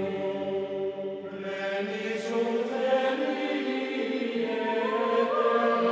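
Background music of chant-like choral voices holding long, sustained notes that shift in pitch now and then.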